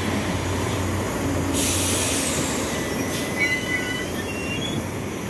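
TROLZA Optima 5275.03 trolleybus standing with its doors open: a steady low hum, a hiss from about one and a half seconds in lasting a second and a half, then a few faint high squeaks.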